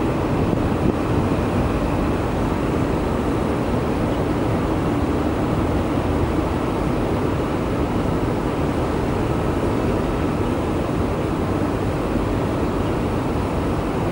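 Steady rumble of jet aircraft engines running across an airport apron, a constant noise with no rise or fall.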